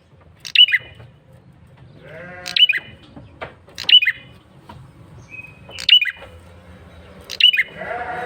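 A male red-headed prenjak (prinia) repeating a sharp, downward-slurred chirp about every one and a half to two seconds, with a buzzy rasping call mixed in twice, used as a lure call to draw other prenjak.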